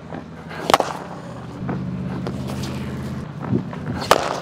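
Cricket bat striking a cricket ball twice: two sharp cracks about three seconds apart, the second one the loudest. A steady low hum runs in between.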